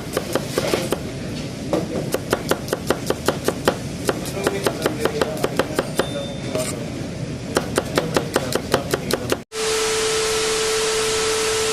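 Kitchen knife chopping quickly on a cutting board, in even strokes about four to five a second, stopping suddenly about nine and a half seconds in. It is followed by a steady hiss with a faint hum.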